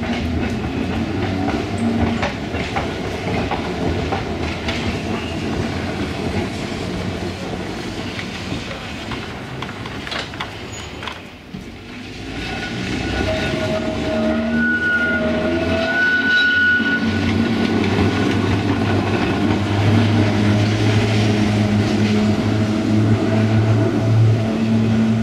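Glasgow double-deck electric tram running along the rails, with wheel and motor noise and a few knocks. A little past the middle a steady high whine sounds for a few seconds.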